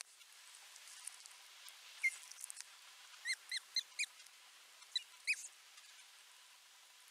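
Osprey on the nest calling in short whistled chirps: a quick run of four about three seconds in, then two more just after five seconds.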